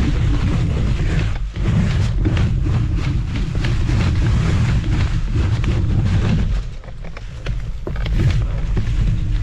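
MS Energy X10 electric scooter riding over a leaf-covered dirt trail: wind rumble on the microphone, with the tyres crackling through dry leaves and the scooter rattling over bumps. It eases off briefly about two-thirds through.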